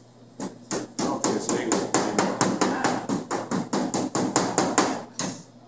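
Metal bench scraper chopping rapidly through flour and fat onto a stainless-steel table, about five sharp knocks a second, with a brief pause near the end. The chef is cutting the cold fat into the flour for pie dough.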